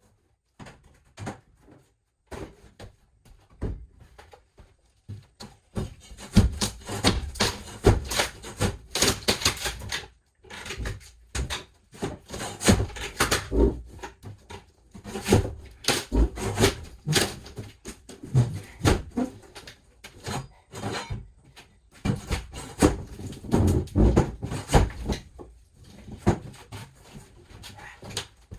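Irregular knocks, clanks and scraping of hands-on work stripping out a school bus interior. It is sparse at first, busy for most of the stretch with short pauses, and thins out near the end.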